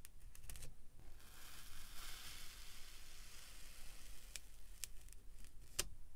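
Plastic scoop cutting through packed kinetic sand: a soft, grainy crumbling hiss for a couple of seconds, then a few sharp little clicks as the sand breaks apart and the scoop is lifted.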